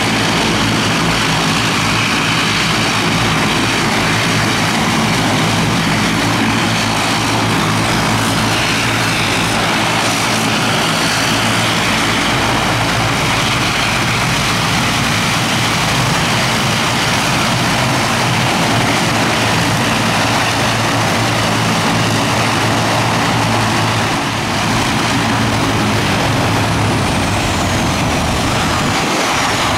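ATR 72 twin-turboprop freighter taxiing at close range, its engines and propellers running in a steady drone with a whine on top. A falling whine comes in near the end.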